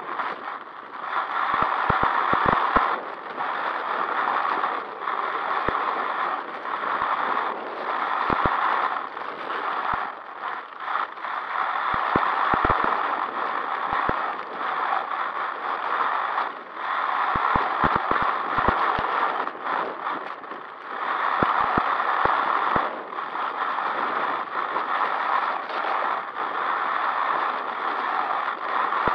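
Onboard sound of an HPI WR8 Flux brushless electric RC rally car driving fast over gravel: the tyres crunch and stones rattle against the chassis, surging and easing every few seconds with the throttle, with scattered sharp clicks of flung gravel.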